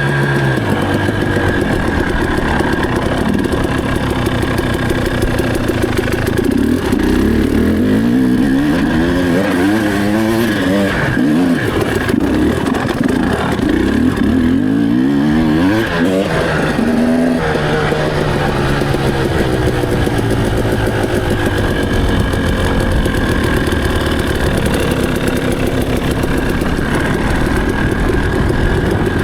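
Enduro motorcycle engine under way: running steadily at first, then revving up and down again and again through the middle, then running steadier with slow changes in pitch.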